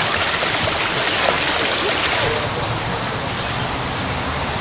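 Steady rush of running, splashing water, a little softer in the upper range from about halfway through.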